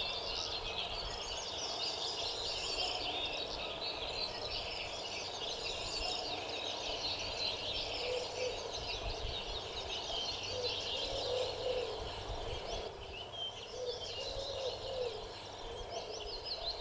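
Dense chorus of many small songbirds singing continuously in overlapping chirps and trills, with a few lower, wavering calls now and then.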